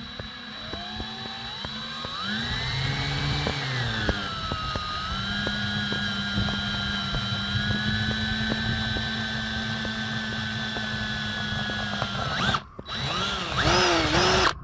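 Power drill running as it bores holes into a solar panel frame. The motor speeds up with a rising whine, then runs steadily for several seconds. It stops abruptly near the end and starts again briefly.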